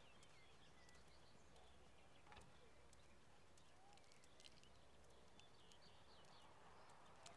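Near silence: faint outdoor background with scattered small bird chirps and a few soft ticks.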